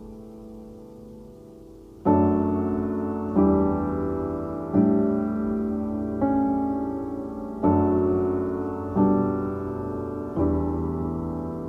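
Slow instrumental piano music: soft held notes at first, then full chords struck about every second and a half from about two seconds in, each one fading away.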